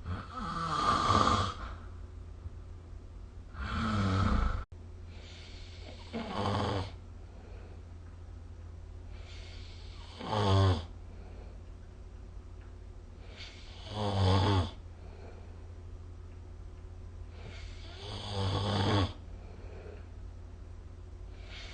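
A sleeping person snoring: a rough snore about every four seconds, each lasting about a second, with a steady low hum between them.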